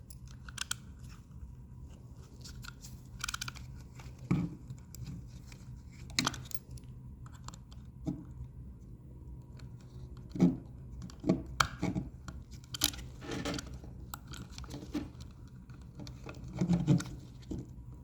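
Irregular small plastic clicks, taps and scrapes of hands working a cable back into its bracket on a Roomba S9 wheel module, over a steady low hum.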